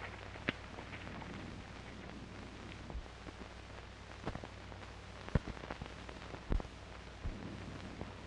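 Steady hiss and low hum of an old film soundtrack, with a few scattered sharp clicks and pops at irregular intervals.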